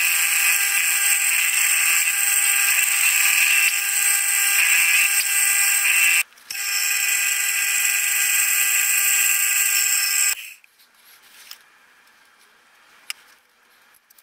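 Milling machine running while it cuts a lubrication recess and oil hole in a mild steel crosshead. The footage is sped up eight times, so the machine comes out as a high-pitched steady whine of several tones. The whine drops out briefly about six seconds in, stops suddenly a little after ten seconds, and a few faint clicks follow.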